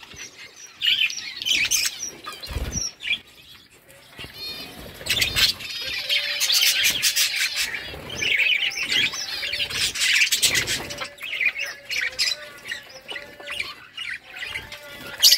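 Several budgerigars chattering and chirping continuously, with short squawks mixed in. A few dull thumps are heard along the way.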